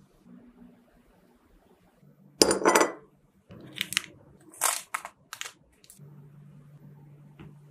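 Plastic-bagged mooncakes dropped onto a pile, their wrappers crinkling: one loud crinkle about two and a half seconds in, then a few shorter crinkles, over a faint low hum.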